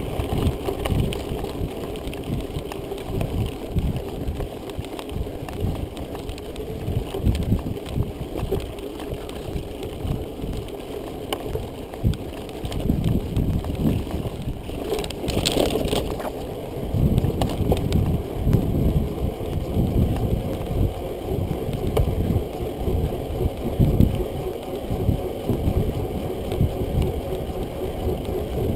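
Mountain bike riding fast over a dirt trail and then pavement, with wind buffeting the microphone in gusty low rumbles. The bike's frame and parts rattle and knock over the bumps, and a brief harsher burst of noise comes about halfway through.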